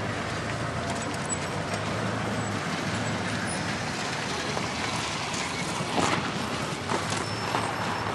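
Steady rushing noise with a few sharp knocks, the loudest about six seconds in.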